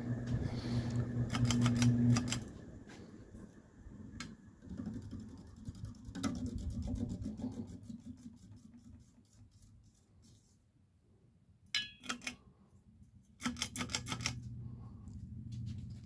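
1994 Encon 36-inch ceiling fan's motor humming while its pull-chain switches are clicked several times and the chains rattle. The hum drops away in the middle and comes back near the end.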